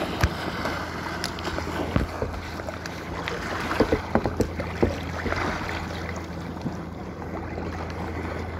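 Choppy lake water slapping and splashing against a sea kayak's hull, with wind on the microphone. Sharp knocks and slaps come scattered through, over a steady low hum.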